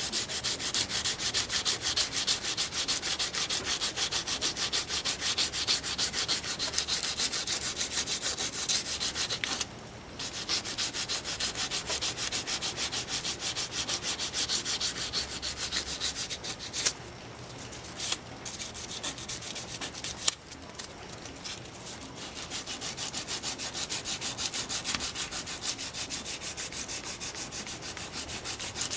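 Fine (120-grit) sandpaper rubbed by hand in quick, even back-and-forth strokes over a metal small-block Chevy roller rocker arm held in a vise, smoothing out the deep scratches left by coarser 80-grit paper. The strokes stop briefly about ten seconds in and again for a few seconds past the middle, where a few sharp clicks are heard, then resume.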